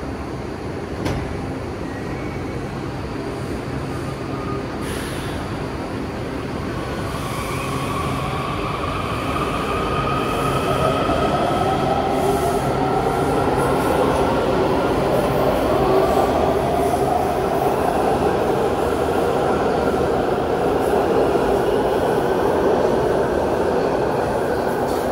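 Kawasaki 7000-series metro train pulling out of an underground station, its propulsion whine rising in pitch as it accelerates over rumbling wheels on rail, growing louder about halfway through.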